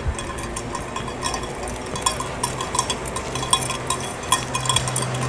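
A small bell clanking and jingling irregularly, many quick metallic rings in an uneven rhythm. A low steady hum comes in about three seconds in.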